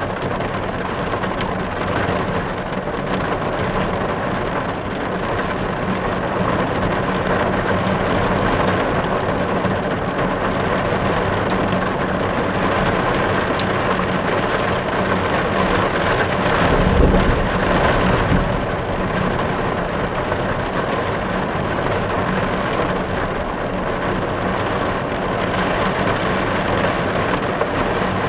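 Steady heavy rain drumming on a car's roof and body, heard from inside the car. A brief low rumble swells up about two-thirds of the way through.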